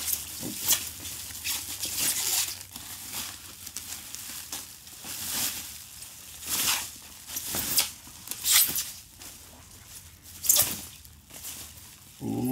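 Crinkly silver foil-laminate protective sleeve crinkling and rustling in irregular bursts, with several louder crackles, as a guitar is slid out of it.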